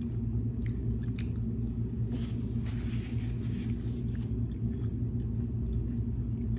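A person chewing food, with small mouth clicks and a rustling stretch from about two to four seconds in, over a steady low rumble.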